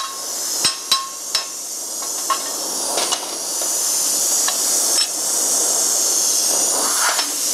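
A hammer striking steel to clean up a fresh plasma cut, knocking loose the slug and dross. About ten sharp metallic hits at uneven spacing, some with a short ring, over a steady hiss.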